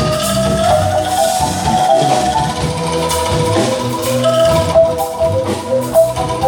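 Angklung ensemble playing a melody, the shaken bamboo tubes sounding sustained rattling notes, with a band accompanying underneath on a low moving bass line.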